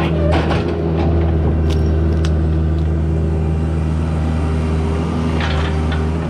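Heavy-equipment engine running steadily at constant speed, with a few short metallic knocks and clicks over it.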